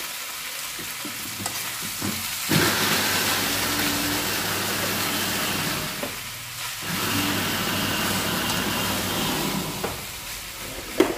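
Rice stir-frying in a metal wok, sizzling steadily as a metal spatula scrapes and turns it. The sizzle grows louder about two and a half seconds in, dips briefly around six seconds, and eases near the end, with a sharp tap just before the end.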